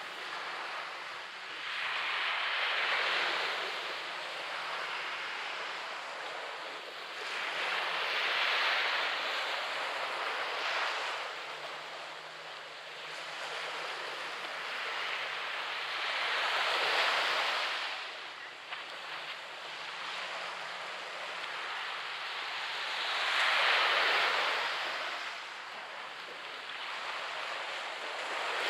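Gulf of Mexico waves breaking on the beach, four times, each crash a swelling rush of surf that fades back into the steady wash of the water between breakers.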